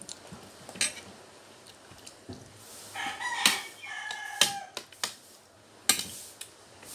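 A rooster crows once, about three seconds in, ending on a long drawn-out note, over sharp clinks of spoons against plates.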